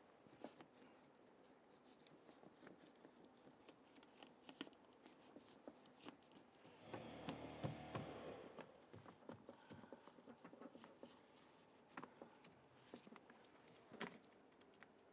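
Faint handling noise of work on a car door's inner panel: scattered light taps and clicks, with a louder rustle about seven seconds in lasting under two seconds, as of the plastic water shield being pressed into place.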